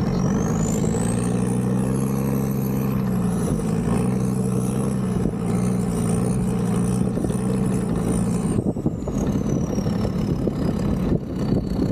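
Diesel engine idling steadily, with a thin high whine over it that climbs in pitch over the first couple of seconds, wavers there, then falls away in the last few seconds: a camera drone's motors as it takes off and flies.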